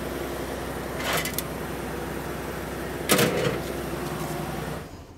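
Steady mechanical hum, with two brief knocks or rustles, one about a second in and a louder one about three seconds in.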